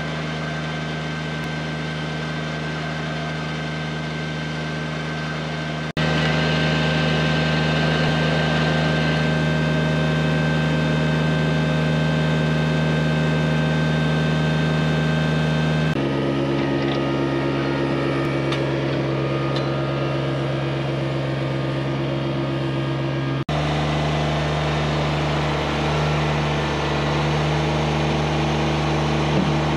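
Compact farm tractor's engine running steadily, in several spliced stretches whose pitch shifts a little at each join.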